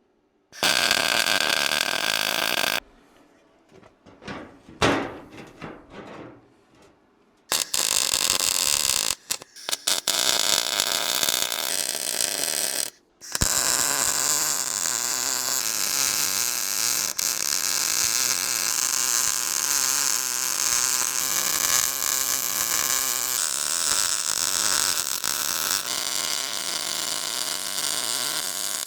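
Electric arc welding, laying beads in separate runs: a short burst of the arc near the start, another from about seven seconds in with brief stops, then one long unbroken run from about thirteen seconds on.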